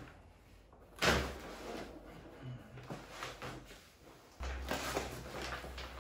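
A large sheet of oak-bark-tanned leather hide is laid down onto kraft wrapping paper with a sudden thump and crackle about a second in, followed by rustling and crinkling of leather and paper. A little past four seconds in a longer, louder rustle starts as a rolled leather hide in its wrapping paper is handled.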